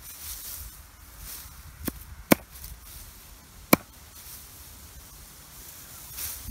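Small hatchet chopping off the ends of birch twigs against a wooden chopping stump, trimming a bath broom: three sharp chops, two close together about two seconds in and one near four seconds.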